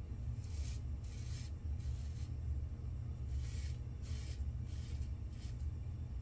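Double-edge safety razor scraping through lathered stubble in a series of short strokes, about one to two a second, over a steady low hum.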